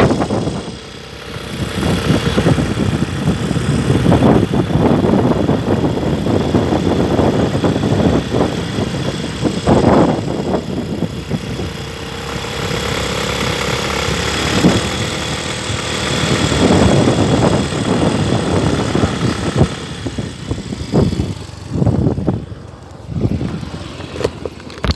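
Small motorcycle running while being ridden, its engine mixed with wind rushing and buffeting over the phone's microphone; the noise grows patchier and quieter near the end.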